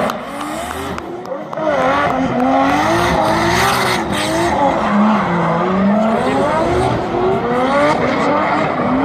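Drift car engine revving up and down as it slides, over the hiss and squeal of spinning tyres. Somewhat quieter for the first second and a half, then louder.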